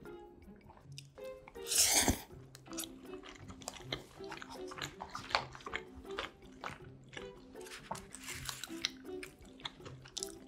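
Close-miked mouth sounds of someone eating creamy pasta: wet smacks and chewing clicks, with a loud noisy burst about two seconds in, over soft background music.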